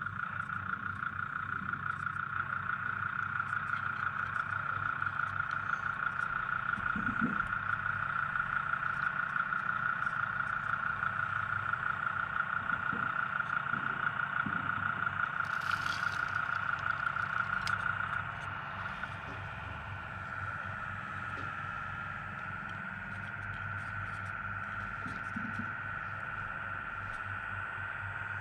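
Radio-controlled CAT compact track loader running its drive and hydraulics, with a steady whine that has a fast flutter and a low hum beneath it. The whine is louder while the full bucket is worked and lifted, and drops in level about eighteen seconds in. There is a brief hiss partway through.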